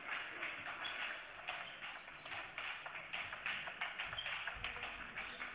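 Table tennis ball being struck back and forth in a rally: a quick run of sharp clicks from the bats and the table.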